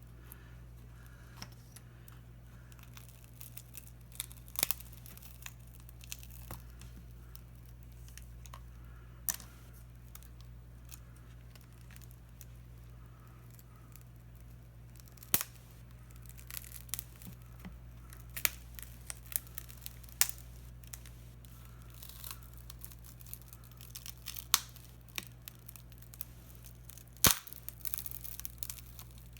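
Shattered tablet touchscreen glass, held together with packing tape, being pried and peeled off its stubborn adhesive: scattered crackling, small tearing sounds and sharp clicks of the tools against the glass, over a steady low hum.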